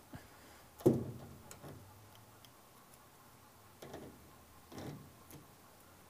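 Faint clicks and light knocks of a washing machine inlet hose's threaded metal coupling being unscrewed and pulled off the water inlet valve, with one sharper knock about a second in.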